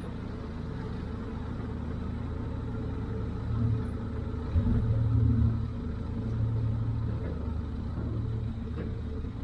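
Engine running with a steady low rumble that swells for a few seconds midway.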